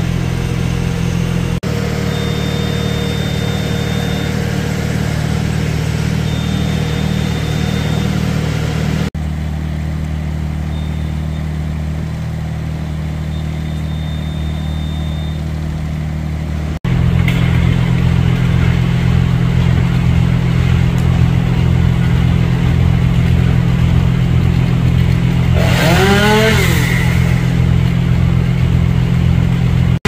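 Heavy machinery engine of tree-removal equipment running steadily under load, a low drone that shifts abruptly in level a few times and gets louder about two-thirds of the way in. A faint high whine comes and goes in the first half.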